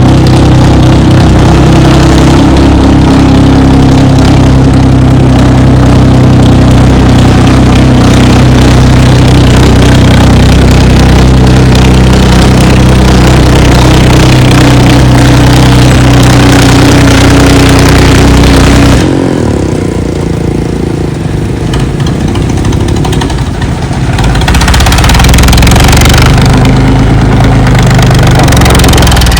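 HMT tractor's diesel engine running loud and steady through its newly fitted silencer. About two-thirds of the way through, the sound drops a little and turns duller for about five seconds, then comes back full.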